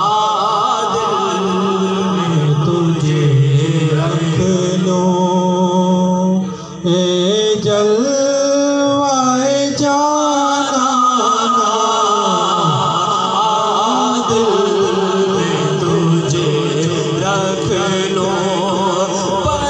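A man singing a manqabat, a devotional Sufi poem, into a microphone, in a melismatic chant with long held, wavering notes through the middle and a brief pause for breath about six seconds in.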